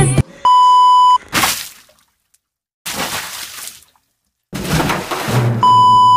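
Outro sound effects: a steady electronic beep lasting under a second, then a sharp crash-like burst, a short hiss, and a second identical beep over a low hum near the end.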